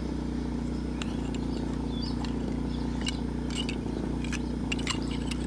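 Small petrol generator running with a steady hum. About three seconds in come a handful of sharp metal clicks from a ratchet ring spanner undoing the carburettor float-bowl bolt.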